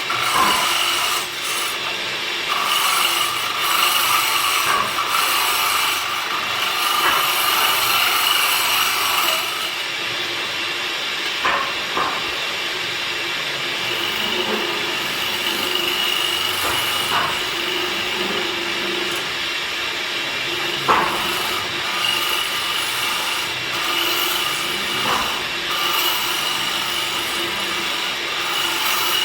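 A power woodworking machine working teak wood: a steady running whine with the scraping of a tool cutting the wood, the sound shifting about a third of the way through, and a few short sharp clicks later on.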